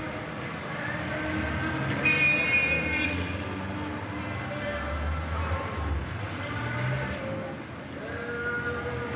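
City street traffic with car horns honking, one loud horn blast about two seconds in lasting about a second, and another horn near the end.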